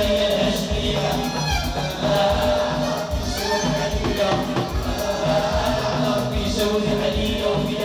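Live Moroccan chaabi band music: a drum kit keeps a steady beat with cymbal hits under a sung melody and accompanying instruments.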